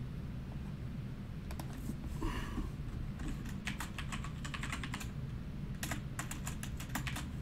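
Typing on a computer keyboard: a few scattered key clicks, then quick runs of clicks around the middle and again about two-thirds of the way in.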